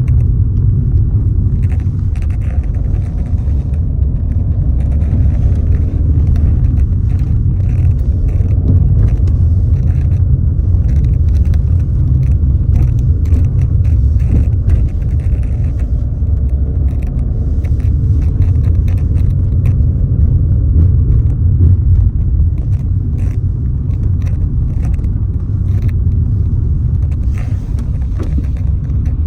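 Wind buffeting the microphone: a loud, steady low rumble, with faint scattered ticks above it.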